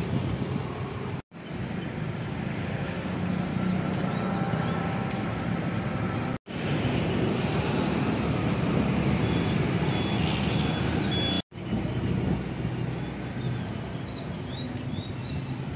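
Outdoor street ambience: steady traffic noise and a low rumble, cutting out briefly three times.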